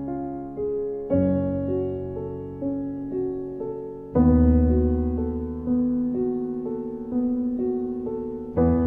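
Slow solo piano music: a low chord struck about a second in, another around four seconds and one near the end, with single melody notes stepping between, each left to ring and fade.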